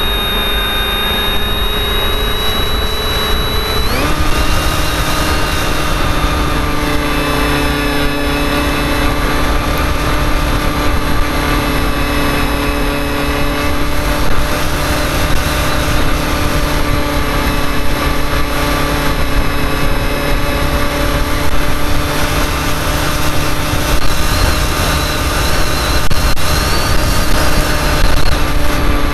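Tower Pro 2408-21 brushless motor spinning a 7x6 propeller on an RC flying wing, a steady whine heard through an onboard key fob camera. Its pitch shifts abruptly about four seconds in, then holds steady.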